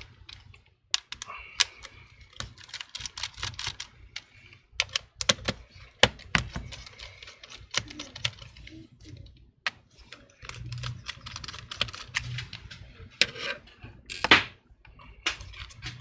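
Phillips screwdriver backing out the small screws that hold a laptop battery: runs of fine rapid clicks and ticks, with separate sharp taps in between and one louder knock near the end.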